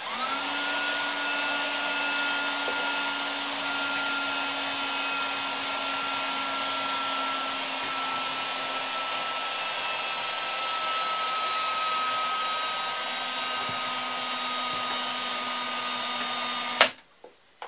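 Cordless drill running steadily, turning a tip-up's spool through a deep-well socket to wind fishing line onto it. It comes up to speed at once, its pitch sags slightly over the long run, and it stops suddenly about a second before the end.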